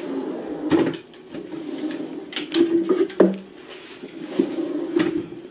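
Sharp knocks and clatter of a small child's hand handling things on a kitchen countertop, about five of them, over a steady low hum that stops and starts.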